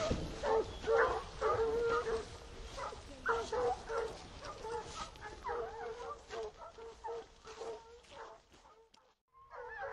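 A pack of hunting hounds in cry: many overlapping bays and yelps. It thins out towards the end, drops to a brief silence, then starts again.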